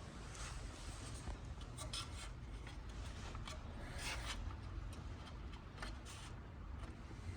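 Faint handling noise from bolts, parts and tools: soft rubbing and scraping strokes with a few light clicks over a low steady hum.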